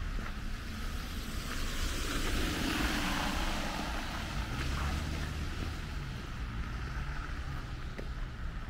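A car driving past on the street, its tyre noise swelling to a peak about three seconds in and fading as it moves off ahead, with a low engine hum trailing after it.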